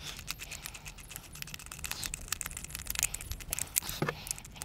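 Light, irregular metallic clicking and scraping as a socket spins a nut down a threaded M6 bolt by hand. One stronger knock comes about four seconds in.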